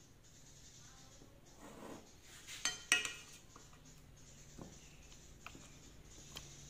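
A metal spoon clinks sharply twice against dishware, the second clink the loudest, followed by a few faint light ticks.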